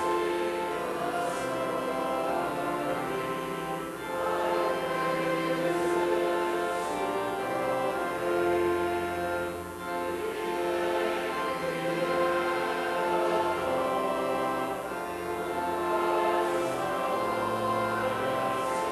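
A church organ plays a hymn in slow, held chords. The phrases are broken by short pauses about 4, 10 and 15 seconds in.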